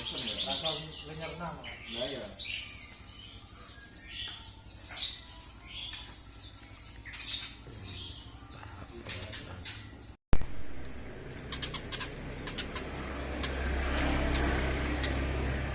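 Caged songbirds, white-rumped shamas and their tutor birds, chirping and whistling in quick, varied phrases. About ten seconds in, the song breaks off suddenly and gives way to a low steady rumble with scattered sharp clicks.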